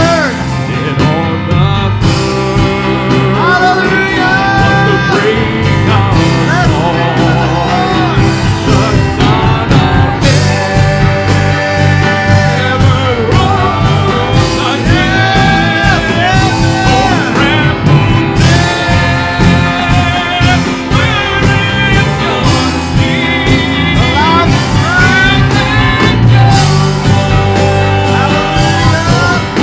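Live worship band playing an instrumental passage of a praise song: a gliding lead melody held over steady bass and full band.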